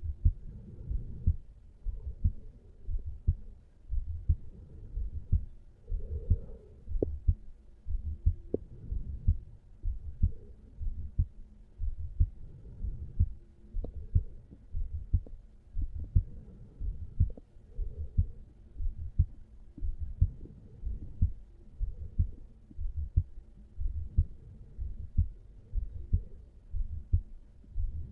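Human heartbeat recorded over the mitral (bicuspid) valve area of a resting adult man's chest: a steady run of low lub-dub beats, about one a second.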